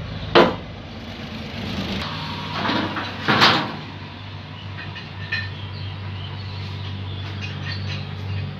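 Sawmill machinery running with a steady low hum, broken by a sharp knock about half a second in and two loud rushing noises around three seconds in.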